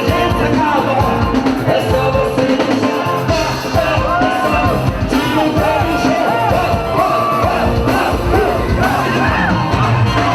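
Live forró band music with a singer's voice over the band.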